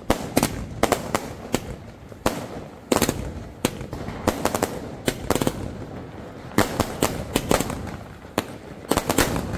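Diwali firecrackers going off, with a dozen or more sharp bangs at irregular intervals over a low background rumble.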